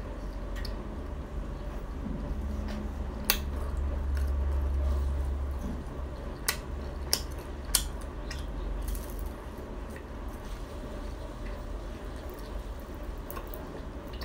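Close-up chewing and crunching of Khmer crispy cakes, with a few sharp crackles from bites spread through the middle of the stretch. A low steady rumble sits underneath and swells for a second or two about four seconds in.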